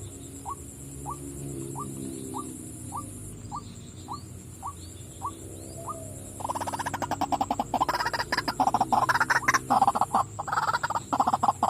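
White-breasted waterhen calling: a regular series of short rising notes, about one every 0.6 seconds, then about six seconds in a loud, rapid, harsh croaking chatter.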